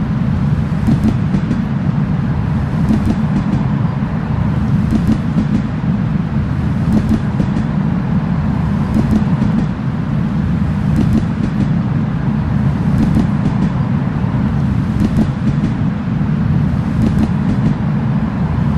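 Steady low rumble of a running vehicle, with faint irregular clicks over it.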